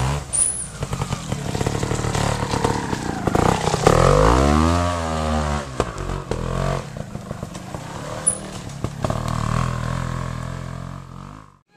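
Vintage trials motorcycle engine running as the bike climbs a steep section, with a mechanical clatter. About four seconds in it revs up and falls back, then keeps running at a steadier pace. The sound cuts off suddenly near the end.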